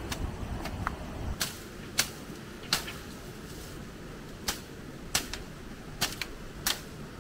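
A series of sharp, irregular clicks and snaps, roughly one every half second to second, over a faint steady hiss. A low rumble fills the first second and a half, then drops away.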